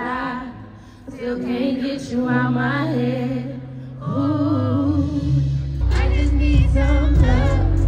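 Live R&B concert music recorded from the crowd: a woman singing over a band. The music changes abruptly about four seconds in, and heavy bass comes in from about six seconds.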